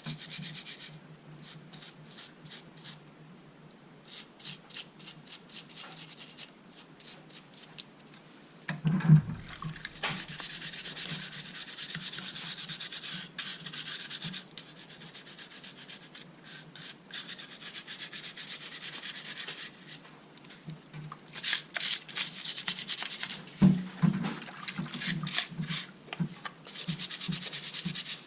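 Hand rubbing or scraping against a hard surface: runs of quick back-and-forth strokes alternating with longer steady stretches, with a louder knock about nine seconds in and another near the end.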